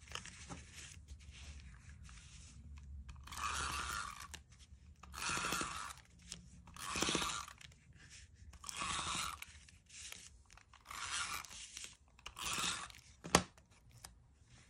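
Liquid glue bottle squeezed while its tip is dragged across the back of a cardstock panel: six short scraping strokes about every one and a half to two seconds, then a sharp click near the end.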